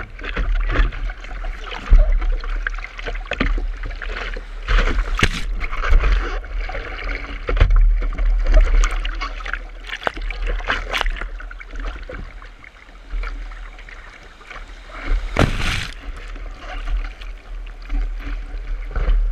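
Sea water splashing and washing over the nose of a surfboard and against a camera mounted on it, with surf churning around the board. Irregular splashes come over a constant low rumble.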